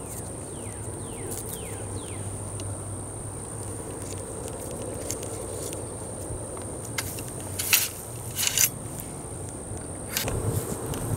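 Steel ramrod of an M1842 rifle musket seating a paper-cartridge Minié ball: two short scraping strokes down the barrel about a second apart, then the rod drawn back up the barrel near the end.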